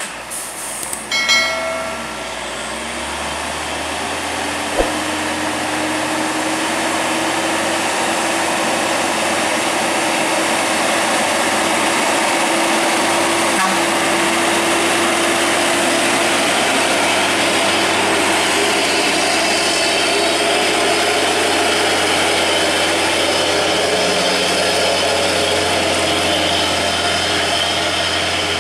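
Hino truck's diesel engine labouring up a steep climb, a loud steady drone that builds over the first few seconds and then holds as the truck passes. A brief horn toot sounds about a second in.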